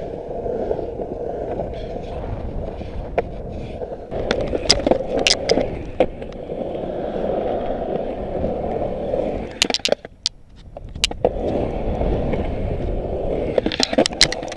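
Skateboard wheels rolling on concrete in a bowl, a steady rumble, with sharp clacks of the board about four to five seconds in, around ten seconds, and again near the end. The rolling drops out briefly around ten seconds.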